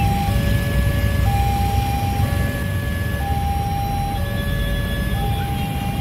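Railway level-crossing warning alarm sounding a steady two-tone hi-lo signal, each tone about a second long, over the low rumble of road traffic waiting at the crossing: the barrier is down for an approaching train.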